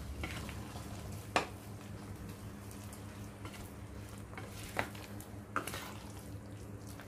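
Wooden spatula stirring a thick, mushy mix of jackfruit, coconut paste and curd in a nonstick pan, with soft scraping and three sharp knocks of the spatula against the pan: one about a second in and two near the end. A low steady hum runs underneath.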